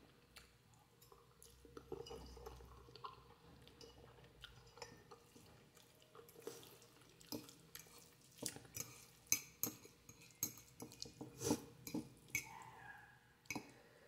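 Close-up eating sounds of spicy instant noodles: quiet, scattered short wet clicks and smacks of chewing, with light clinks of a utensil or dish. The clicks are sparse at first and come more often from about halfway through.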